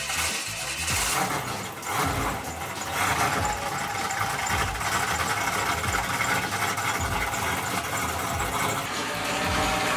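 Car engine idling, with an uneven pulsing low end.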